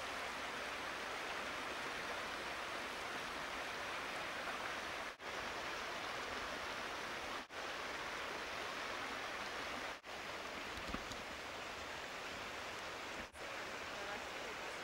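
A steady rushing hiss with no distinct events, broken four times by short dropouts.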